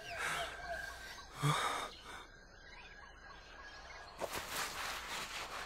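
Gasping, heavy breaths from a young male anime character, over forest ambience with small birds chirping in the first second.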